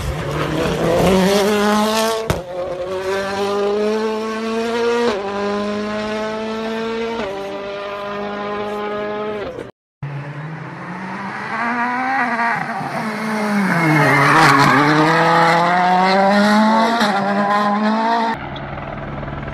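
Rally car engines at full throttle. First a car accelerates hard, its note climbing and dropping sharply at each of four upshifts. After a cut, a car's note falls as it slows into a bend, with a rush of tyre noise at the slowest point, then climbs again as it accelerates away.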